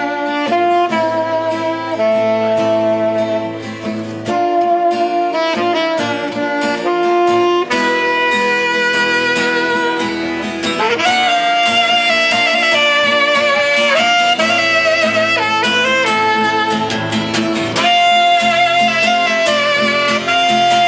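Live rock band playing an instrumental break between verses: a wavering lead melody line over guitar and bass.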